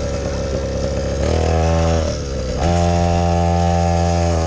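Engine of a Chinese 50cc XTM Monster kids' quad bike running as it is ridden. Its pitch drops about a second in, sags again around two seconds, then picks up and holds steady at higher revs.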